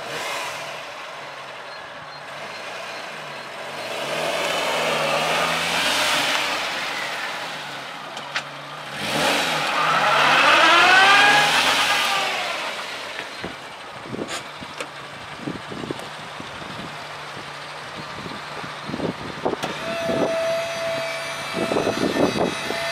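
DFSK mini truck's 1.3-litre petrol engine driving by: its pitch rises and falls as it speeds up and pulls past, twice, about four and ten seconds in, then it runs at a steady low idle with a few light knocks. A steady higher whine joins about twenty seconds in.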